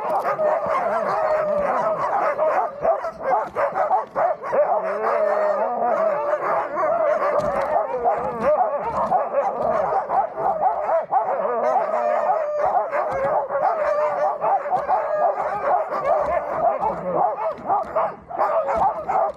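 Sled huskies howling and yelping together, many voices overlapping in a continuous, wavering chorus.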